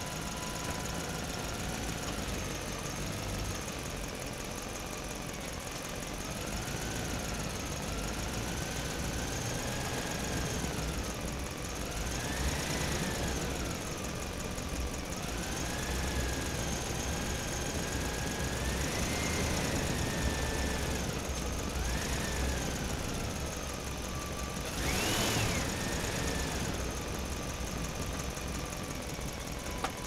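Truck engine running as the truck drives slowly in a parking lot, its pitch rising and falling several times as it accelerates and eases off. The quickest and loudest rise and fall comes near the end.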